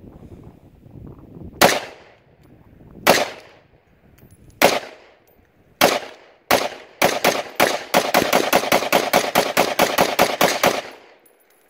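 Rifle fired from a shooting bench: five single shots a second or so apart, then a rapid string of about twenty shots at roughly five a second lasting nearly four seconds, each shot cracking and echoing briefly.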